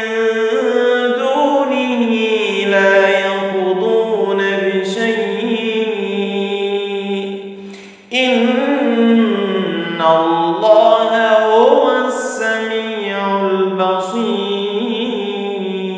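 Male voice chanting Quran recitation in a slow, melodic tartil style, drawing out long ornamented held notes. The voice breaks off briefly about eight seconds in, then resumes.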